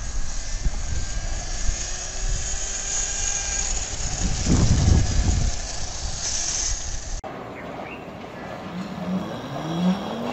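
Wind rumbles heavily on the microphone over the faint whine of a homemade electric motorcycle riding around, its pitch gliding up and down. About seven seconds in, the sound changes abruptly to quieter street noise in which another electric motorbike's whine rises in pitch as it pulls away.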